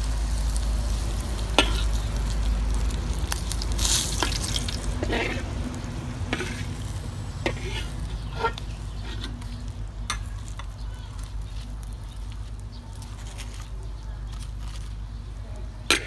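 Hot oil sizzling in a steel wok as whole fish fry, with a metal spatula knocking and scraping against the pan now and then in sharp clicks. The sizzle slowly grows fainter.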